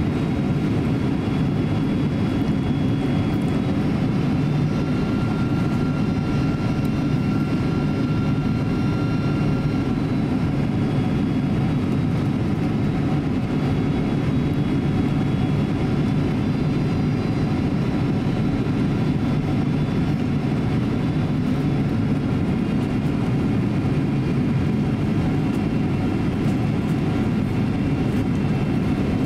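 Steady cabin noise inside a Boeing 767-300 airliner on final approach: a low, even rumble of airflow and jet engines, with faint high whining engine tones that drift slightly in pitch.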